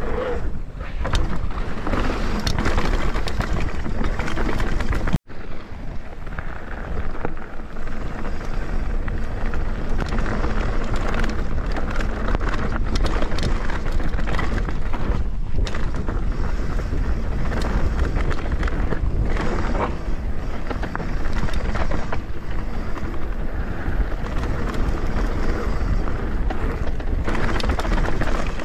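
Mountain bike riding fast down a dirt trail: wind buffets the camera microphone over steady tyre noise, with frequent knocks and rattles from the bike over rough ground. The sound cuts out briefly about five seconds in.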